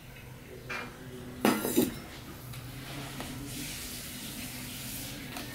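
Stainless steel bowl clattering twice against the table and plate about a second and a half in, with a short metallic ring, as it is emptied and put down. Then a soft, steady rustle of fingers mixing rice and vegetables on a steel plate.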